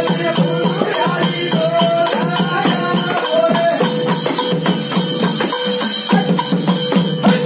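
Instrumental passage of devotional folk music: a violin plays a wandering melody over a steady held note, while a small hand frame drum with jingles beats a quick rhythm.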